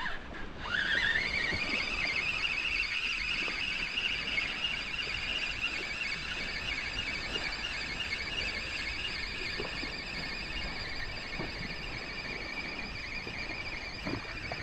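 Taut fishing line pulled against a seabed snag, giving a high, steady whine that climbs in pitch over about a second as the strain comes on, then holds.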